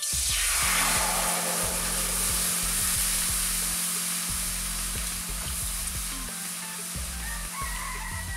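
Cooking oil poured into a hot kadai, sizzling loudly at once, then settling into a steady hiss that fades slowly.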